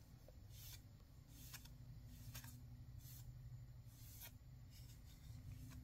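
Faint soft swishes of a paintbrush stroking paint onto a metal tin lid, one every second or so, over a low steady room hum.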